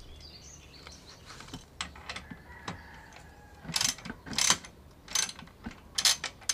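Ratchet wrench clicking in short bursts, about two a second, starting a little past halfway, as a bolt on the motorcycle's exhaust is turned.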